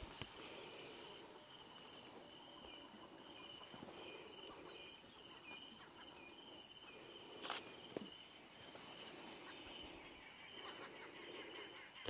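Quiet bush ambience: an insect, cricket-like, chirping in a run of short, evenly spaced high notes, along with soft rustling of footsteps through tall grass. Two sharp clicks come close together a little past the middle.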